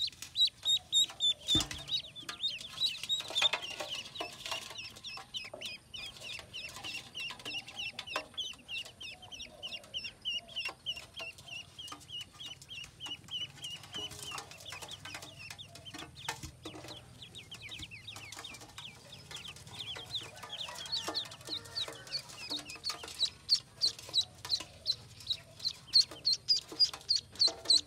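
A brood of domestic ducklings peeping: a dense stream of short, high, rapid peeps from many chicks at once. The peeping is loudest at the start and again in the last few seconds, when a single duckling is held up close with its bill open.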